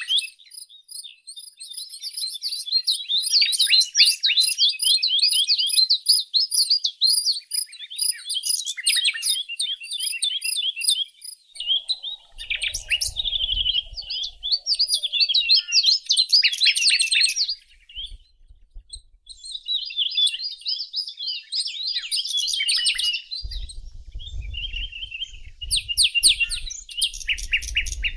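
Songbirds chirping and singing almost without pause in rapid high trills, with a brief lull about two-thirds of the way in. A low rumble comes in briefly near the middle and again through the last few seconds.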